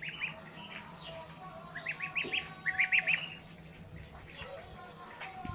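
Goslings and ducklings peeping as they feed, in quick runs of short high calls, loudest about two and three seconds in.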